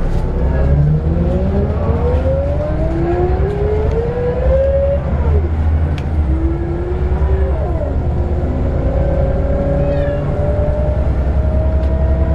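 Scania L94UB bus's nine-litre five-cylinder diesel and ZF 5HP502C automatic gearbox accelerating: a whine climbs in pitch, drops at gear changes about five and seven seconds in, then rises slowly as the bus gathers speed, over a low engine drone.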